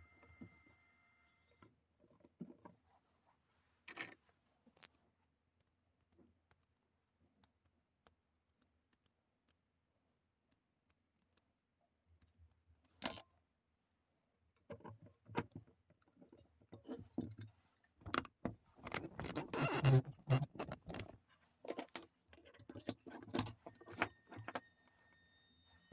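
Small metal parts clinking and rattling as they are handled: scattered sharp clicks, with a denser run of clattering about two-thirds of the way through.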